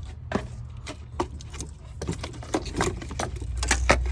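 Quick metallic clicks and knocks of hand tools and parts being handled while coil packs are fitted on a truck engine, over a steady low hum that grows louder near the end.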